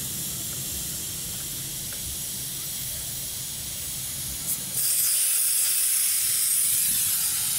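Air hissing out of a Jeep tire's valve stem through a screw-on automatic tire deflator, airing the tire down for driving on soft sand. The hiss is steady and gets louder about five seconds in.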